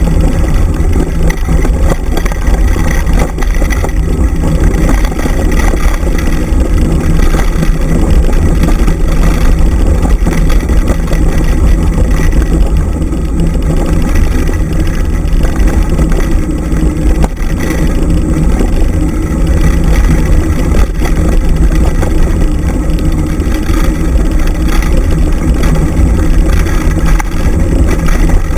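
Continuous loud rumble of wind buffeting the microphone together with a dryland mushing rig's wheels rolling fast over a dirt trail, steady throughout.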